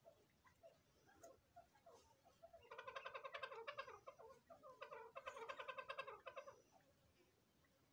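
Dakhni teetar (francolin) calling: two quiet bursts of a rapid, pulsing chatter, each about a second and a half long and a second apart, after a few faint short notes.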